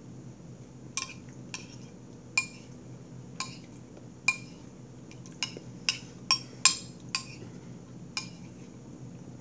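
Metal spoon clinking against a plate as it scoops up beans: about a dozen sharp, irregular clinks with a short high ring, the loudest a little past the middle.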